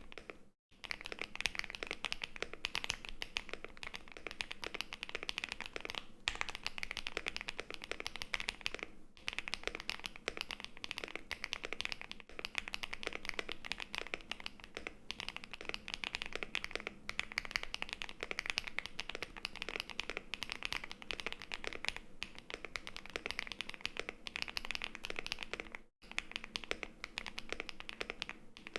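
HJ Snake AL75 mechanical keyboard with HMX Violet switches on an FR4 plate, typed on quickly and steadily: a dense run of key clacks with a few short pauses.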